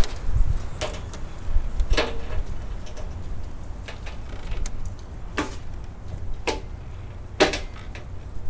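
Sharp clicks and knocks, about six of them a second or so apart, as a bumper impact strip is handled and pressed onto the bumper's studs, over a low rumble.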